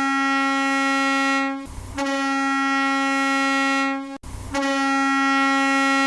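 Arena goal horn sounding three long blasts of a single steady pitch, each about two seconds, with short breaks between them.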